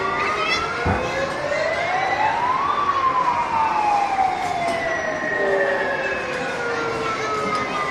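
Fire-truck siren wailing, rising and falling slowly in long sweeps, with a second siren tone overlapping out of step.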